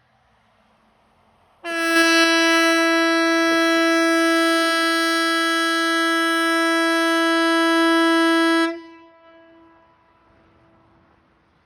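Swedish 'Hesa Fredrik' civil defence warning siren sounding one steady, loud tone for about seven seconds, starting and stopping abruptly. A fainter tone lingers for about two seconds after it stops. A single seven-second blast is one cycle of the 'Important message to the public' (VMA) warning signal.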